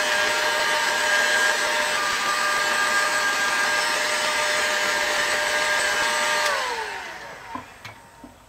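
Electric heat gun blowing steadily with a fan whine. About six and a half seconds in it is switched off and the fan winds down, its pitch falling away, followed by a couple of light knocks.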